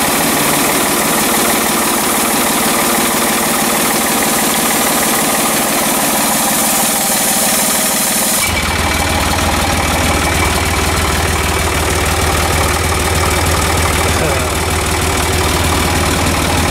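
Long 510 tractor's diesel engine idling steadily just after a cold start, its first run after sitting in the barn all winter. About halfway through, its sound turns deeper and less hissy.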